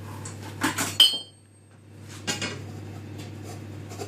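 A metal utensil clattering against a frying pan: a sharp metallic clink about a second in that rings briefly, then a few more clinks and scrapes a little over two seconds in.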